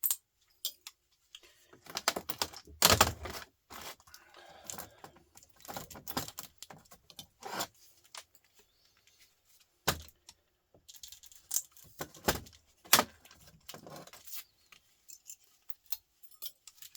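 Irregular clicks, snaps and metallic clinks of small parts being handled as a battery pack is taken apart into single cells, its contacts separated, with a few louder knocks.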